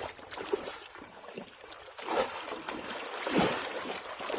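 Shallow water splashing and sloshing, with louder splashes about two seconds in and again past three seconds.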